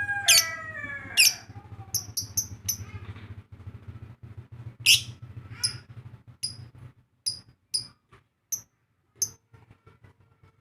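Bird calling in a string of short, sharp, high chirps, roughly one to two a second, after a few longer pitched calls at the start. A low steady hum runs underneath and stops about seven seconds in.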